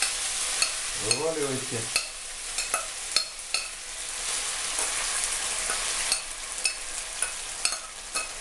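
Chopped bracken fern sizzling as it is tipped into a frying pan of very hot oil for deep-frying, with frequent sharp metallic clinks as the saucepan is knocked against the pan to shake out the last pieces.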